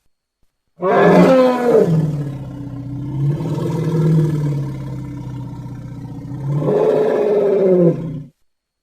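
Elephant vocalising: a loud call that opens with a falling cry, settles into a long low rumbling growl, and rises and falls again before cutting off abruptly.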